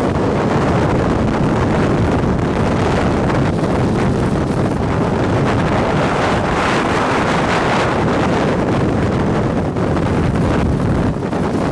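Strong wind gusting over the microphone near a dust-laden tornado: a loud, steady rushing noise with no pauses.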